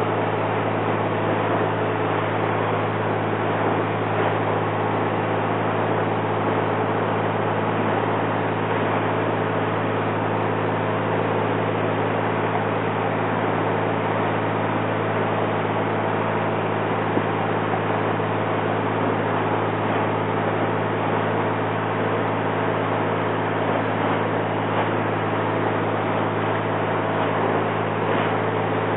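A 1954 Chris Craft Sea Skiff's inboard engine running steadily at cruising speed, a constant low drone mixed with the hiss of water along the hull.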